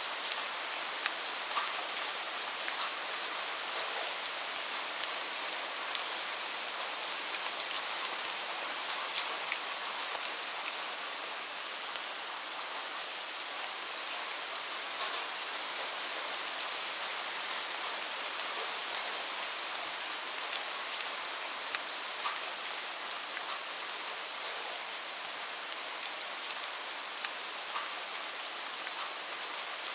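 Rain falling steadily: an even hiss of rain with many individual drops ticking sharply on surfaces.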